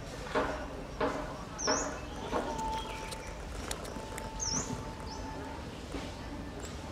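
A small bird chirping, short high calls every second or two, over a few soft clicks in the first couple of seconds. A steady whistle-like tone runs for about three seconds in the middle.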